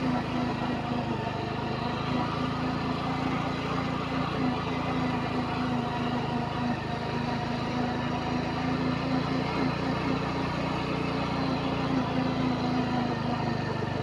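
Motorcycle engine running steadily at low speed, carrying the rider slowly over a rough dirt road.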